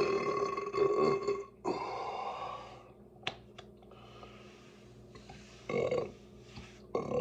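A person burping: a long, loud burp trails off about a second and a half in and is followed by a softer, rougher one, then two short bursts come near the end.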